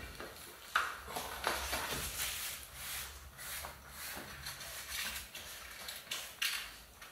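A Pirelli Cinturato tubeless tyre being worked by hand onto a Fulcrum Racing 6 DB rim: an irregular string of short rubs and scrapes of rubber against the rim.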